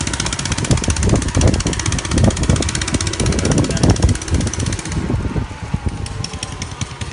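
Small fishing-boat engine running on pure LPG, chugging steadily as the boat moves along. A high rushing hiss over the engine drops away about five seconds in.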